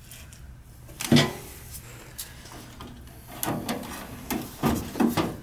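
Sheet-metal clunks and knocks as the gas furnace's blower assembly and housing are handled and worked loose, the loudest about a second in and several more close together near the end.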